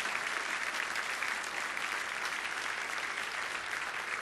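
Congregation applauding, many hands clapping steadily.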